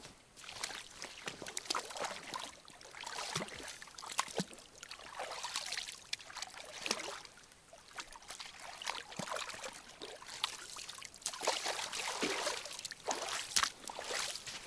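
Irregular splashing and dribbling of water as a hooked burbot is pulled out of the water and landed.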